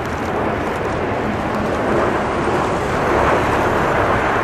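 Jet noise from a formation of Kawasaki T-4 jet trainers with twin turbofan engines flying past, a steady rush that swells to its loudest about three seconds in.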